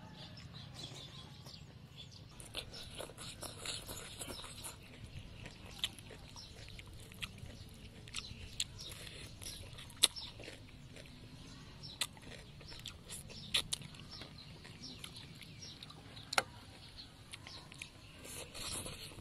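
Eating sounds: chewing fried fish and vegetables, with sharp clicks of a fork against a metal tray every couple of seconds, the loudest about ten seconds in.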